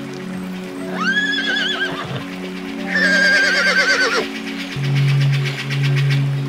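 A horse whinnying twice, each call a quavering neigh of about a second, the second slightly longer, over background music with steady sustained tones.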